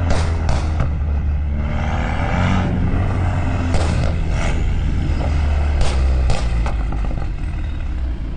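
BMW F30's N26 turbocharged 2.0-litre four-cylinder engine driving with the turbo whistling, its note rising briefly about two seconds in. Several short, sharp bursts come in clusters near the start, around four seconds and around six to seven seconds in.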